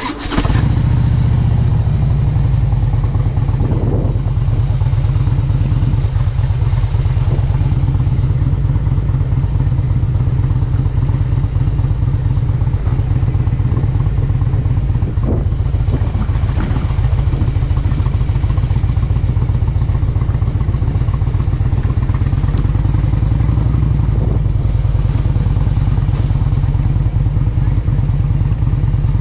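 A motor vehicle engine running steadily and loudly, with a deep, evenly pulsing hum. It starts abruptly and holds a constant level.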